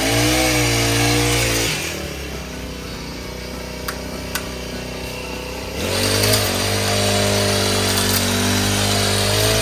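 Petrol pole hedge trimmer's small engine revving high, dropping back to a lower idle about two seconds in, then revved up hard again about six seconds in.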